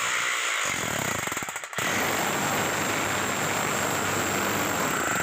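A 5 kg electric demolition breaker hammering rapidly under power. It stops briefly about two seconds in, then starts again.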